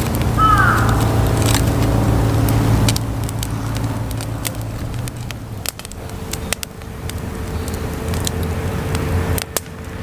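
Split softwood kindling crackling and snapping with sharp scattered pops as it catches in a mesh fire stand. A low, steady rumble underlies the first three seconds.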